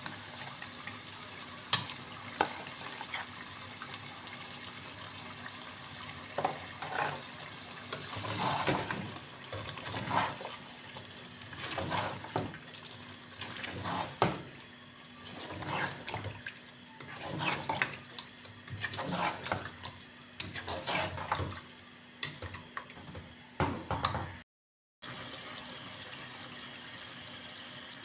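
Water running steadily from a tap, with irregular splashing and clattering through most of it.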